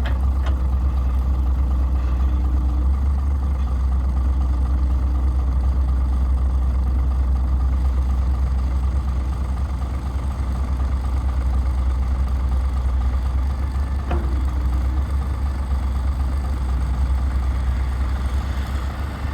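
Heavy machinery engine running steadily at a low, even rumble, with a faint click near the start and another about fourteen seconds in.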